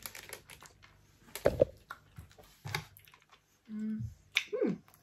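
A person chewing a sweet close to the microphone: scattered small clicks and smacks, with a short hum about three-quarters of the way through and a falling 'mm' near the end.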